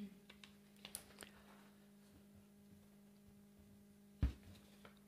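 Quiet meeting room tone with a steady low electrical hum, a few faint clicks, and one dull thump about four seconds in.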